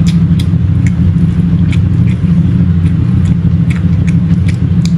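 A loud, steady low droning hum, with scattered small clicks and smacks of someone eating rice by hand and chewing.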